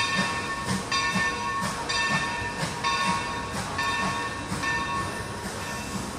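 Steam train running slowly out of sight, with a rhythmic beat about twice a second and high squealing tones that come and go. It is fading gradually as it moves away.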